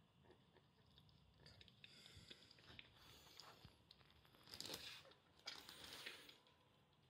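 Faint, soft clicking of a calico kitten lapping from a bowl, with two short spells of rustling noise past the middle.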